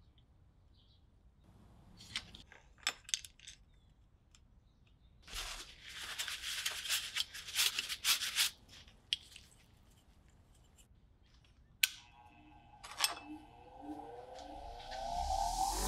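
Crinkly rustling of a paper shop towel being rubbed in gloved hands, with a few sharp clicks. Near the end a Bauer 6-inch bench grinder switches on, its motor whine rising as it spins up.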